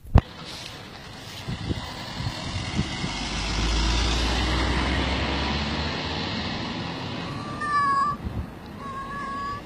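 A motor vehicle passes in the street, its low rumble swelling in the middle and fading. Near the end a cat meows twice, short calls.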